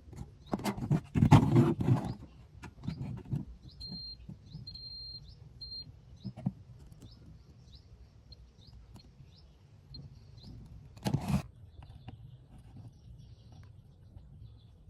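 Small birds chirping again and again in short high chirps, with a brief steady whistle about four seconds in. Louder noisy bursts come about a second in and again about eleven seconds in.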